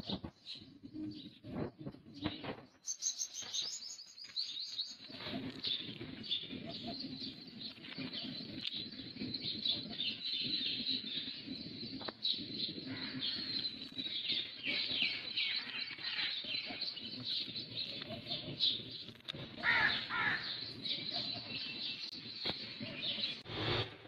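Dawn chorus: many small birds chirping and singing at once in a dense, continuous twittering, with a few clicks in the first seconds.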